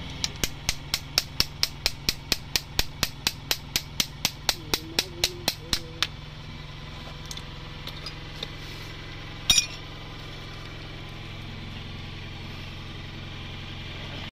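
Hammer blows on metal gearbox parts as a Mahindra Bolero pickup gearbox is taken apart: about two dozen quick, even strikes, about four a second, for some six seconds. A single louder metallic clatter comes a few seconds later, over a steady low hum.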